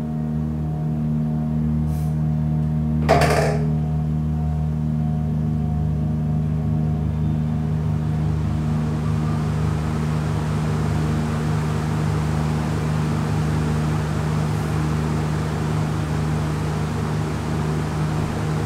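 Ceiling fan running, its rushing whoosh of air swelling from about eight seconds in, over a steady droning ambient music bed. A single sharp click about three seconds in.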